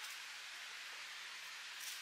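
Soft, steady outdoor background hiss, with a faint short tick near the end.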